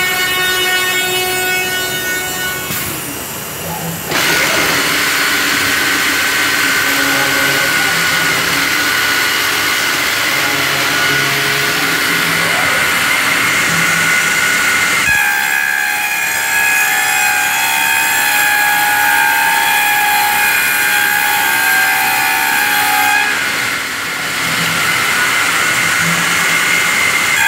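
Masterwood Project 300 V2 CNC router machining a panel: a loud, steady high-pitched whine from the spindle with a hiss over it. The pitch shifts about four seconds in and again about fifteen seconds in, and the sound dips briefly near the end.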